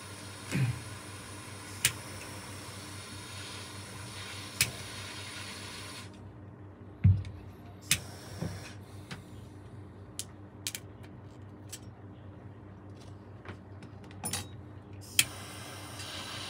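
Scattered sharp clicks and a few dull knocks of small objects being handled, over a steady hiss that cuts out about six seconds in and comes back near the end.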